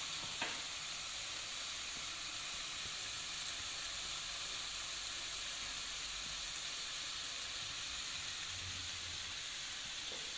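Chicken and minced meat frying in oil in a pan, a steady sizzle, with one small click about half a second in.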